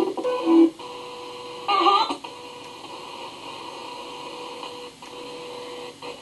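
Spirit box sweeping through radio stations: steady static hiss broken by brief clipped fragments of broadcast sound, one at the start and another about two seconds in.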